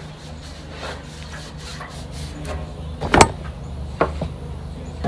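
220-grit sandpaper and a rag rubbing over a freshly painted steel outboard fuel tank in light scuffing strokes, over a steady low hum. A sharp knock about three seconds in is the loudest sound, with a smaller one a second later.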